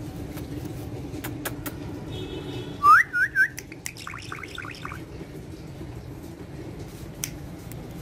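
Indian ringneck parakeet whistling: one loud rising note about three seconds in, two short curled notes, then a quick run of chattering notes. Scattered faint clicks and a steady low hum sit underneath.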